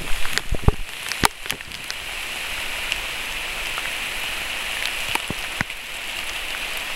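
Heavy rain falling steadily through the forest, with sharp ticks of single drops hitting close by, most of them in the first second and a half.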